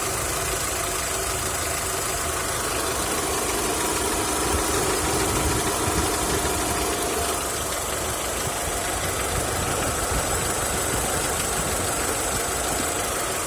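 Mitsubishi 4G63 four-cylinder engine running at a steady idle with a knock that shows up once the engine is warm.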